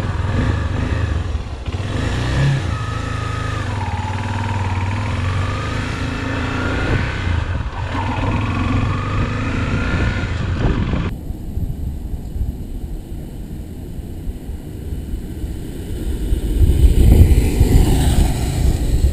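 Honda XRE 300 motorcycle's single-cylinder engine heard from on board, revving up and dropping back several times as it shifts through the gears. About eleven seconds in the sound cuts abruptly to a quieter roadside, and near the end the motorcycle grows loud as it passes close by.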